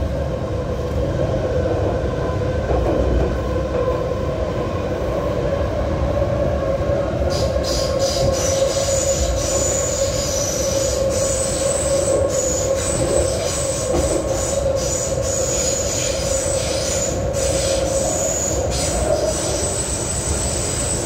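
MTR Kwun Tong line C-Train running through a tunnel, heard from inside the car: steady rumbling running noise with a held mid-pitched tone. About seven seconds in, a steady high-pitched wheel squeal joins and stays.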